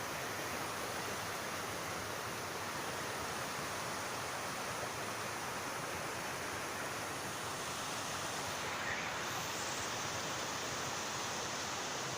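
Floodwater rushing in a swollen stream, a steady noise that holds at one level throughout.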